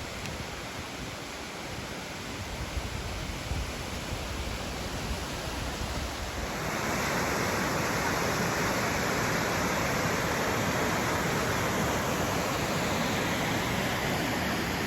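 Steady rush of falling water from a mountain waterfall and its cascades, growing clearly louder and brighter about six and a half seconds in.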